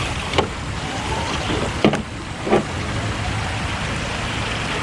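Steady rush of water from a waterfall and stream, with three short knocks about half a second, two seconds and two and a half seconds in, from the RC crawlers working over the wet rocks.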